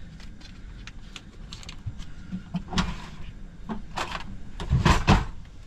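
Handling noises: the foil wrapper of a block of butter crinkling as it is unwrapped, and a kitchen drawer of cutlery sliding open, in a string of short clicks and rustles. A pair of knocks near the end is the loudest.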